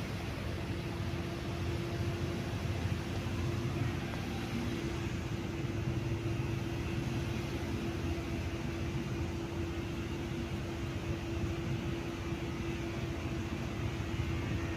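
Cosmos 56-inch (140 cm) industrial ceiling fan running: a steady hum with one constant tone over a low rumble and a light rush of air.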